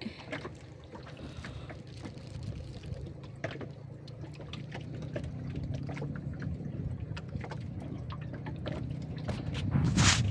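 River water lapping and trickling around a small boat's hull, with scattered drips and small splashes as a wet fishing longline is handled over the side. A low rumble rises toward the end, and a brief hiss comes just before the end.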